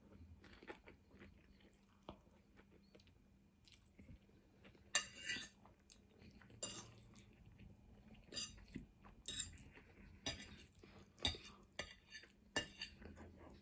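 Cutlery clinking and scraping against a bowl of noodles, with faint chewing between; the sharper clinks come every second or so through the second half.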